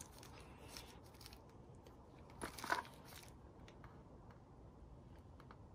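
Quiet handling noise with a brief crackle of a small plastic bag, about two and a half seconds in, as a medal sealed in it is handled.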